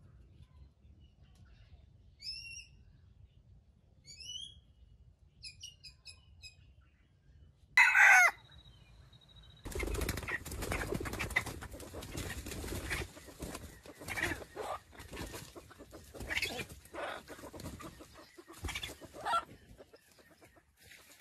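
Junglefowl rooster giving one loud, short call about eight seconds in, after a few faint rising chirps from small birds. Then about ten seconds of rustling noise with scattered short calls, fading near the end.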